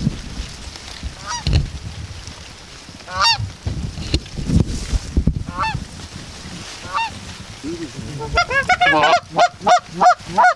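Geese honking: scattered single honks at first, then a quick run of many honks in the last couple of seconds.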